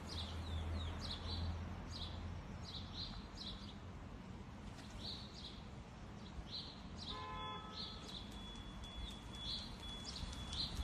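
Small birds chirping in short, high calls at irregular intervals, faint over a steady background noise. A brief tonal sound comes in about seven seconds in.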